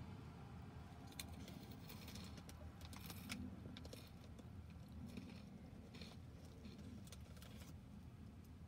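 Quiet street ambience: a faint steady low rumble with scattered light clicks and rustles.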